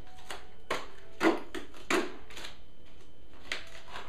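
Green tape being peeled off a plastic deli cup, with the thin plastic crackling as it is handled. A string of short crackles, the loudest about a second and a quarter in and again near two seconds.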